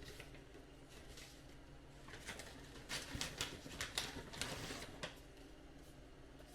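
Light plastic clicks and rattles from the RC truck's small toolbox and bed rack being handled, a quick run of taps over a few seconds in the middle, then quiet.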